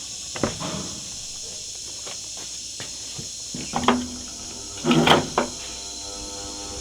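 Several short knocks and clatters, the loudest a cluster about five seconds in, over a steady high hiss.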